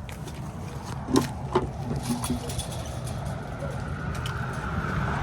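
Steady low rumble of traffic, which swells toward the end as a vehicle comes closer, with two sharp knocks about a second in and light scuffs of footsteps.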